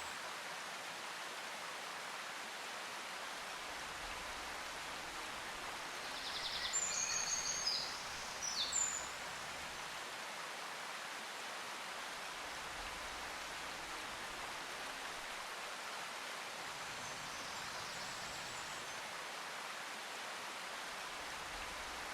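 Faint, steady background hiss, with a brief cluster of short high chirps about seven to nine seconds in.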